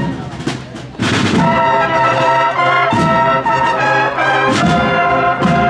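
Brass band playing a Holy Week processional march: held brass chords that shift from note to note, with sharp accents about a second in, near three seconds and near the end.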